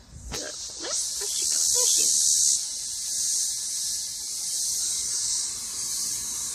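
Evening insect chorus: a steady, high-pitched shrill of insects that swells about a second in.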